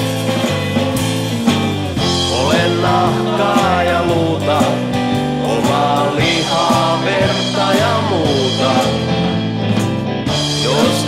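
Blues-rock band playing an instrumental break between sung verses: a lead line with sliding, bending notes over steady bass and drums.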